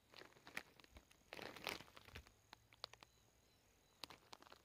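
Plastic snack bag crinkling faintly as it is handled, a run of scattered crackles and clicks with a louder patch about a second and a half in.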